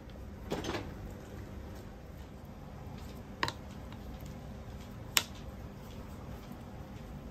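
Dumplings being wrapped by hand: a brief soft rustle of wrapper and gloves, then two clicks of a metal spoon against the filling bowl, the second sharper and louder, over a low steady room hum.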